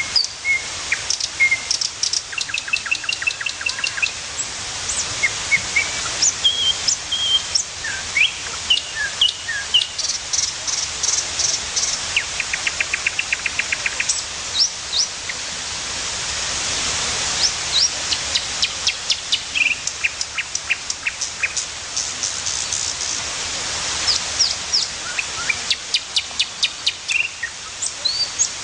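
Several birds chirping, a dense mix of short high chirps, quick downward-sweeping notes and rapid trills, over a steady background hiss.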